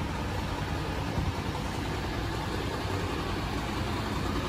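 A truck's engine idling steadily, a low, even rumble.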